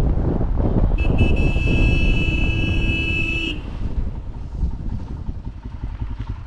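A vehicle engine running, with a horn blowing one steady blast of about two and a half seconds, starting about a second in. The engine then quietens to an even throbbing, as when slowing down to idle.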